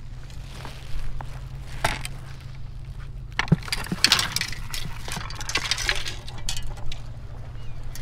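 Footsteps and small clinks and knocks of handled gear while someone moves over granite jetty boulders, over a steady low rumble. The clattering is busiest in the middle.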